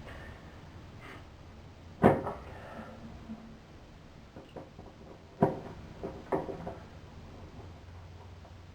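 Needle-nose pliers knocking and clicking against a metal bathtub drain strainer as they work it loose: one sharp knock about two seconds in, a few light clicks, then two more knocks a little past halfway.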